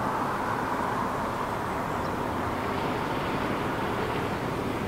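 Distant diesel locomotive engines, a steady low rumble and hum with no sharp events.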